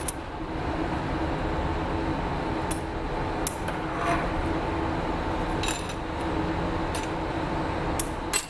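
Glassblowing hand tools clinking a few times against metal and glass while hot glass is worked at the bench, over a steady workshop hum, with the sharpest clink near the end.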